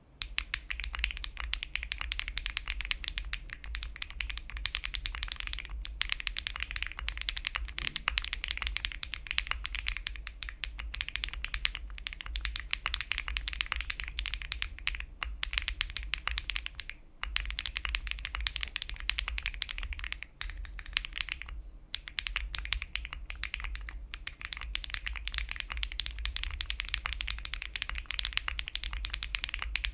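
Fast, continuous typing on an Akko Mod007 v2 mechanical keyboard with lubed Akko CS Lavender Purple switches, a PC plate and PBT Cherry-profile keycaps, each keystroke a click over a low thock. The typing stops briefly about six, seventeen and twenty-one seconds in.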